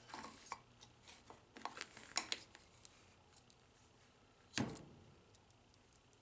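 Small metal and plastic parts of a vending machine's rotor motor assembly being handled: a scatter of light clicks and clinks, then one louder knock about four and a half seconds in.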